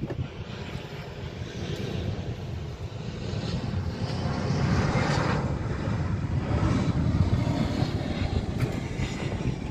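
Airbus H125 helicopter running on the ground, a steady rumble that grows louder about four seconds in, heard from inside the cockpit.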